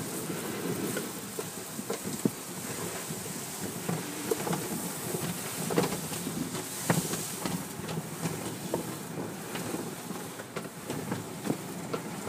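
Automatic car wash heard from inside the car: water spraying onto the windshield and body while the cloth brushes sweep across the glass, with scattered soft thumps as the brushes hit the car.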